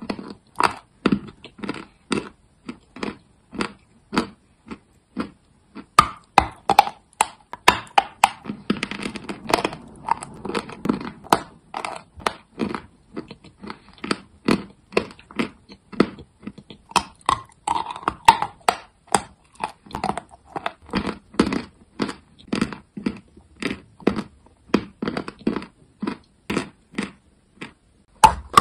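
Chalk being bitten and chewed: a steady run of sharp crisp cracks, about two a second, with a stretch of softer grinding crunches about a third of the way in.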